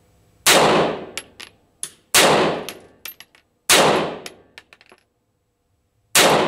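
Four pistol shots, the first three about a second and a half apart and the last after a longer pause near the end. Each shot rings out in a decaying echo, followed by a few short clicks.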